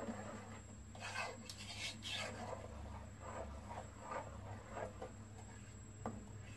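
Wooden spoon stirring a thick cream-and-cashew gravy in a nonstick pot, scraping and rubbing along the pot in repeated strokes, roughly two a second.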